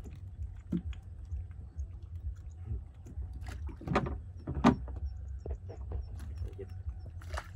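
Freshly caught small fish (Siamese mud carp and tilapia) flopping and slapping in a pile in the bottom of a boat as they are sorted by hand, with a few sharper slaps in the middle, over a steady low rumble.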